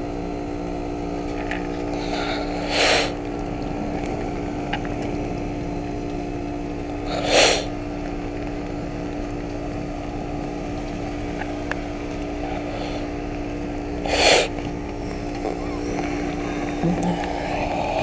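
2.5-ton Ruud Achiever RP14 heat pump outdoor unit running in its defrost cycle, a steady hum with several steady tones. Three short, loud bursts of noise break in a few seconds apart.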